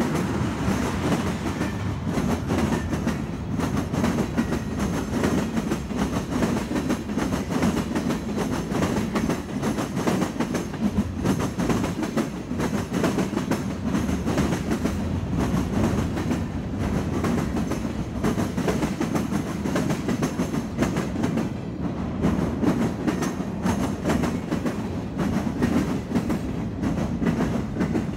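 Freight train cars rolling past close by: a steady rumble of steel wheels on the rails with a continuous clickety-clack from the wheels crossing the rail joints.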